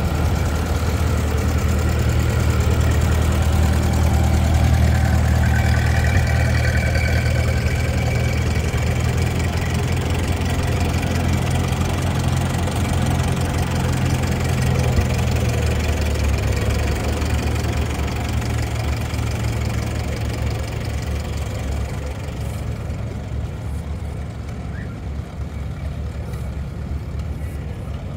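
Vintage tractor engine idling with a steady low chug, growing fainter in the second half.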